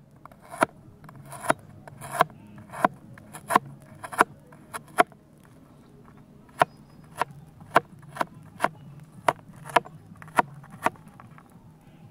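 Large kitchen knife slicing fresh ginger on a plastic cutting board: sharp knocks of the blade on the board about every half second, with a short break midway.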